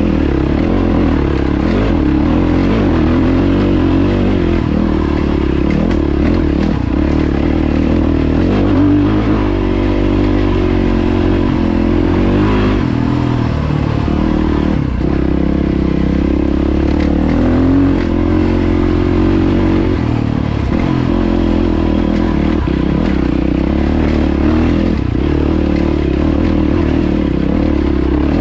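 Yamaha WR450F dirt bike's single-cylinder four-stroke engine running under way on a rocky trail, its pitch rising and falling as the throttle opens and closes.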